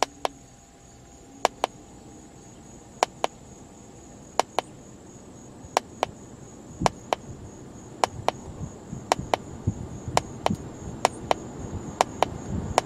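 Scan tool's keypad clicking, a press-and-release pair of clicks about every second and a bit, as the blower speed is stepped up one level at a time. Under the clicks, the car's heater/AC blower motor rushes steadily louder as it is commanded up through its speed levels.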